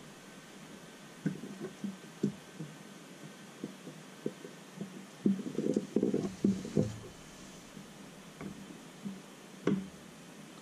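Scattered soft knocks and taps from multimeter test probes and hands handling a circuit board, with a busier run of them around the middle and one sharper click near the end.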